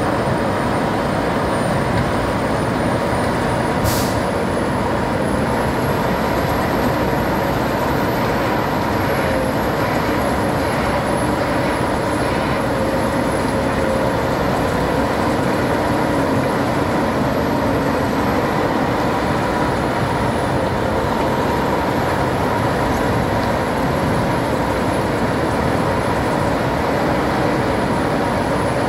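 Arjes Titan 900 diesel-hydraulic shredder running under load, shredding waste wood fed in by a wheel loader: a steady, loud mechanical din with steady hums and a thin high whine. A single sharp tick about 4 seconds in.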